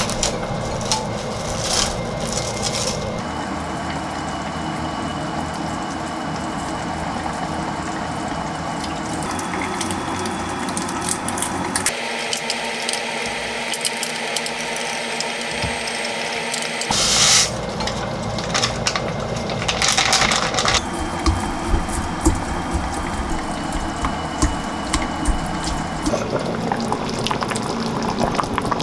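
Kitchen preparation sounds in a sequence of short cuts: cling film peeled off a glass bowl of steamed bean sprouts, seasoning squeezed onto them and the sprouts stirred in the bowl, with sharp crinkling and clinks. Near the end a pot of soup bubbles on the stove.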